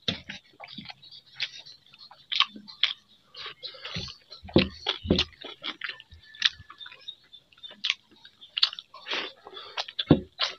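Close-up eating sounds of watery fermented rice (pakhala bhata) and fried vegetables eaten by hand: chewing, lip smacks and wet squishes as fingers work the rice in its water. A few dull knocks fall around the middle and near the end.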